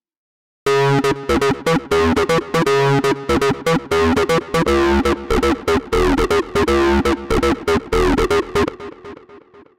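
Xfer Serum software synthesizer playing a factory sequence preset: a fast repeating pattern of short, bright synth notes over a bass line. It starts after a brief silence and fades out near the end.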